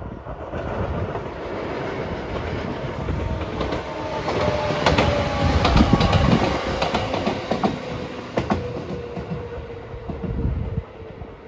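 A JR 213 series electric train passing close by: the rumble of wheels on rail builds, with a run of sharp clacks over the rail joints about halfway through and a faint falling whine, then drops away as the train moves off.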